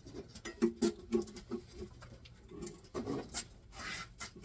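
A quick, uneven run of light clicks and taps from hand tools and metal parts being worked on a Chevy 350 small-block during teardown, about four or five a second at first, then sparser.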